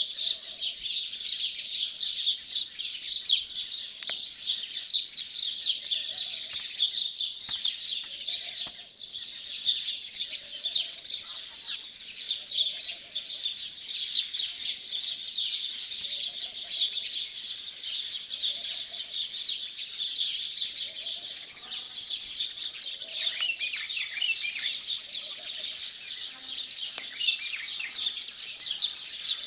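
Morning chorus of many small birds chirping and twittering together in a constant high-pitched chatter, with a lower call repeating every second or so underneath.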